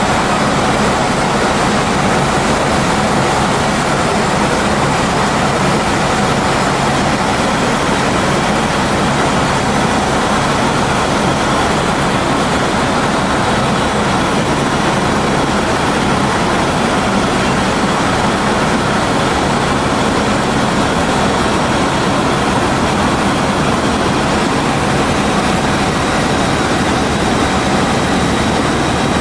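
Helicopter cabin noise: the engine and rotor drone, heard from inside the cabin, steady and loud, with a faint steady whine on top.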